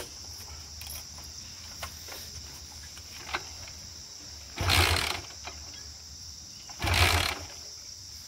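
Two brief attempts to start a Hero Honda motorcycle, each under a second, a few seconds apart; the engine does not catch. A steady drone of crickets or cicadas runs underneath.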